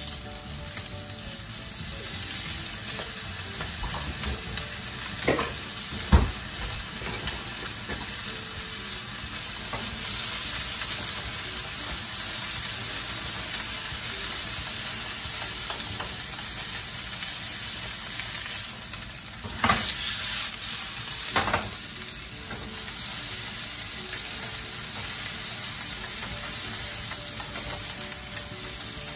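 Yakisoba noodles and sausages sizzling in a frying pan as they are stirred and tossed. A few sharp knocks ring out, the loudest about six seconds in.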